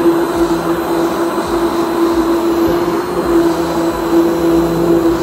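Immersion blender running steadily in a plastic beaker, blending soaked almonds and milk: a constant motor hum over a churning whirr.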